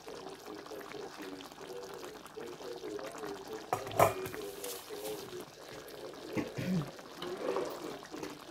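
Thick creamy chicken-and-mushroom sauce simmering in a wide pan, with soft bubbling. A sharp knock about four seconds in stands out as the loudest sound.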